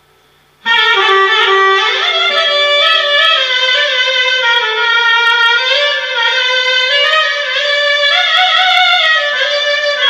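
Solo clarinet playing a taksim, an improvised Turkish-style solo. After a brief pause it plays one long unbroken phrase from about a second in, sliding between notes, with a wavering, ornamented passage near the end.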